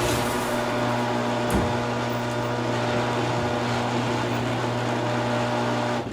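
Electric garage door opener running as the door closes: a steady motor hum over a mechanical rattle, cutting off near the end.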